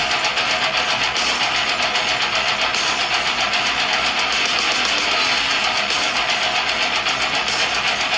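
Death metal music: heavily distorted electric guitars over fast, steady drumming.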